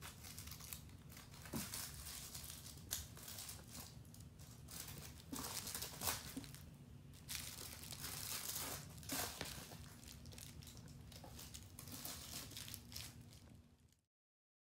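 Irregular soft rustling and crinkling over a low steady hum, fading out near the end.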